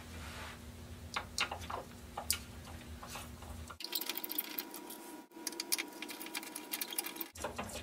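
Small metallic clicks and ticks of a screwdriver working the screws around a projection-tube lens mounting ring: scattered clicks at first, then a quicker run of ticks in the second half.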